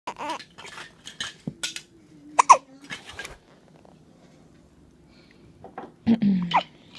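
A seven-week-old baby hiccuping: short, sharp hics at irregular intervals. The loudest are two in quick succession about two and a half seconds in and another burst about six seconds in.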